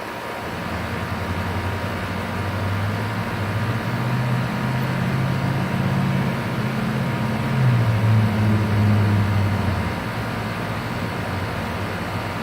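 Outdoor compressor unit running with a steady whoosh of fan and airflow. A low hum rides over it from the start to about ten seconds in, stepping up and down in pitch.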